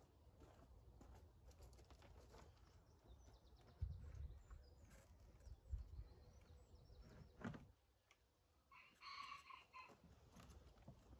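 Faint knocks and bumps from handling, over a low rumble. A short bird call comes about nine seconds in.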